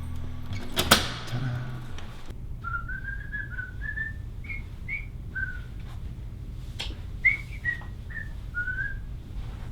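A sharp knock about a second in, then a person whistling a short tune of slurred, gliding notes.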